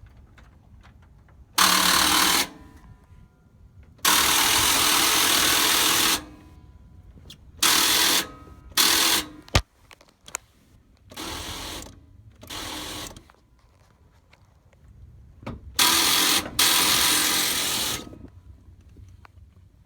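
Starter motor cranking a 1993 Chevy Silverado's 350 V8 in about eight short bursts, each cut off abruptly, the longest about two seconds, with a sharp click near the middle. The engine never catches: a no-start.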